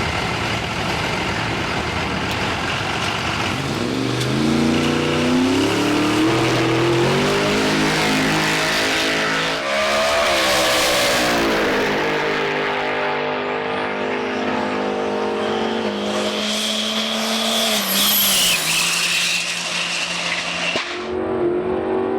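Drag car V8 engine running at hard throttle, its pitch climbing and dropping several times through the gears. A high whine rises in the second half and falls away near the end.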